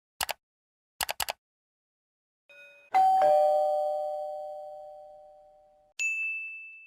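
Two-note ding-dong doorbell chime: a higher note and then a lower one, ringing out and fading over about three seconds. It is preceded by a click and a quick run of three clicks, and followed near the end by a single bright, high ding.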